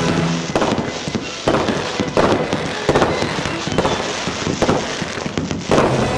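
Fireworks display: a rapid series of bangs from bursting shells, somewhat more than one a second, each trailing off in a short echo.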